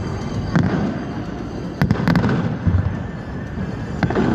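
Fireworks display going off: sharp bangs about half a second in, a quick pair near two seconds in and another near the end, over a continuous low rumble of bursts.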